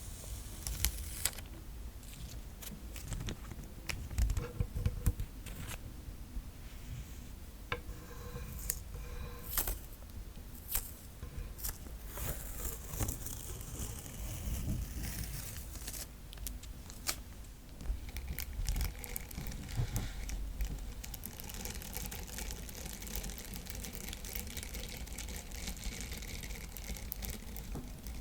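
Adhesive tape being pulled, peeled and torn close to the microphone, with sharp crackles and clicks. About seventeen seconds in it gives way to a silicone sponge being handled, a steadier scratchy hiss.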